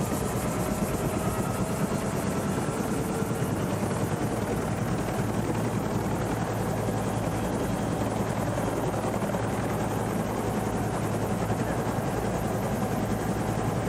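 Helicopter in flight: the steady, unbroken noise of its rotor and engine, with a faint, slowly rising whine over it.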